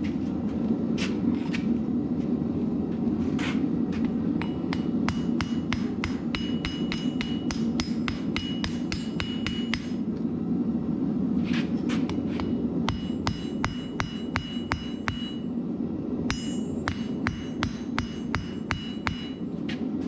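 Hammer blows on steel over an anvil, forging a blade from 5160 leaf spring steel. There are a few scattered strikes, then quick runs of several blows a second, each with a high metallic ring, over a steady low rushing noise.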